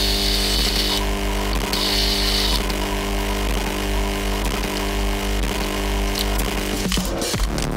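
Bench drill press motor running with a steady hum while the bit cuts into a steel part held in a machine vise, giving a high cutting screech twice in the first few seconds; this is the hole for an M3 threaded adjustment screw. Near the end the running sound changes and a few sharp knocks are heard.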